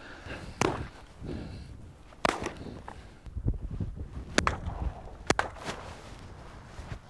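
Several shotgun shots fired at flushing ptarmigan, sharp single reports spaced irregularly over a few seconds, over faint wind.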